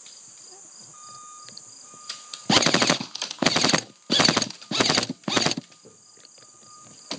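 Airsoft rifle firing five short full-auto bursts in quick succession about two and a half seconds in, loud and close, with a steady high buzz of insects underneath.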